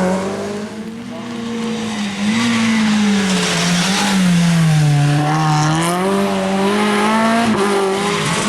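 Rally car engine at full throttle, its pitch rising and falling as the driver lifts, brakes and accelerates through the corners, louder again from about two seconds in; tyres hiss and squeal as the car slides.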